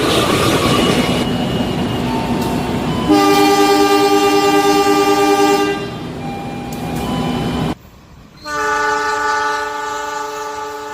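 Train horn sounding twice over rumbling noise: a long chord of a few seconds from about three seconds in, then another blast near the end that fades out.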